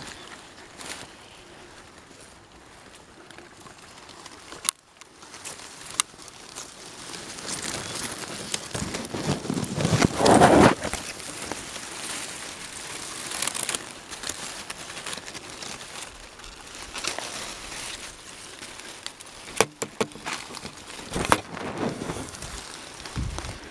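Close handling rustle: fabric and feathers rubbing and crinkling against the camera microphone, with a few sharp clicks and a louder rubbing rush about ten seconds in.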